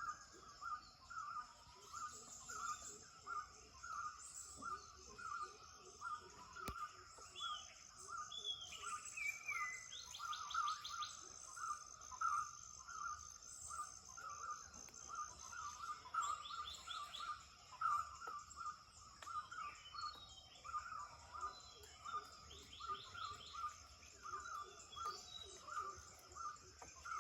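Dawn chorus of several birds. A steady run of repeated mid-pitched notes, several a second, runs throughout. Other birds add a couple of falling whistles and short high trills now and then, over a steady high-pitched hum.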